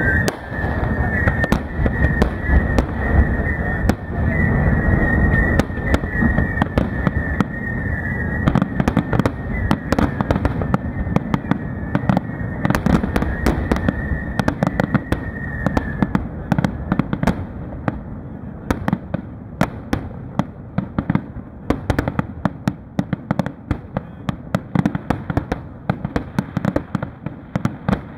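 Aerial firework shells bursting in rapid succession: deep booms over a continuous rumble, with many sharp pops and crackles. The booming eases off over the second half while the crackling goes on. A high, wavering whistle runs through roughly the first half.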